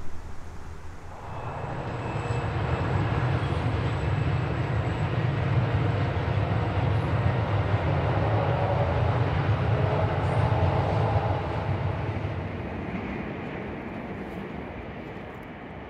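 Diesel locomotives passing: a deep engine rumble mixed with broad running noise. It builds over the first couple of seconds, holds steady, and fades away over the last few seconds.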